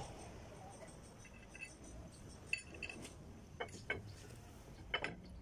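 Small metal parts clinking as they are handled and fitted at a truck's rear wheel hub: about five sharp clinks spread over a few seconds.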